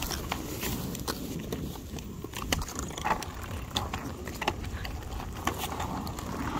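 Quad roller skates with plastic wheels rolling over rough asphalt: a steady low rumble, with scattered clicks and knocks from the skates striking and pushing off.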